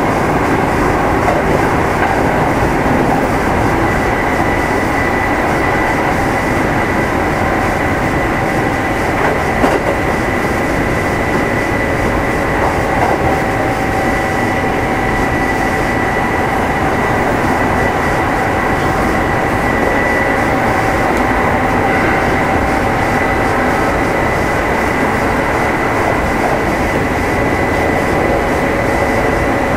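Kintetsu 2610 series electric train heard from inside motor car Mo 2668 while running between stations: a steady rumble of wheels on rail with a steady whine from the traction motors and gearing, and a few faint clicks.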